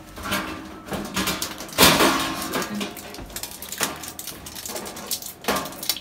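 Stainless steel gelato pans clanking and scraping against each other and the cabinet's metal rails as one pan is lifted out. There are several sharp metallic knocks, the loudest about two seconds in.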